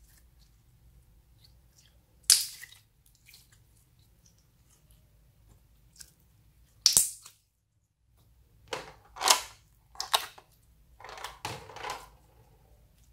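Slime squeezed and stretched by hand, giving a string of short, wet squelches and pops, spaced out at first and coming closer together in the second half.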